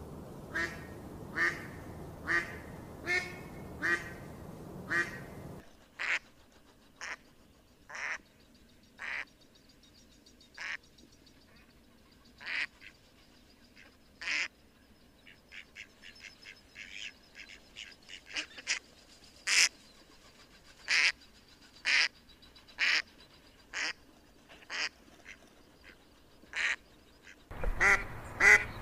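Waterfowl calling: a series of short calls, about one a second over a steady background noise at first. After a sudden drop in the background about six seconds in, the calls come singly a second or two apart, with a quick run of softer calls in the middle and a fresh burst near the end.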